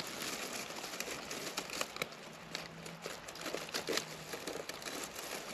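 Leaf litter rustling and crackling, with irregular small crackles and snaps.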